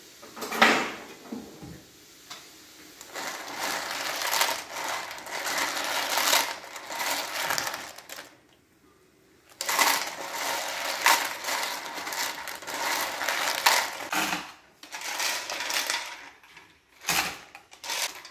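Cockle shells clattering and scraping in a frying pan of water as a slotted plastic spatula stirs and scoops them, in two long stretches with a short pause between. A sharp knock comes about a second in and again near the end.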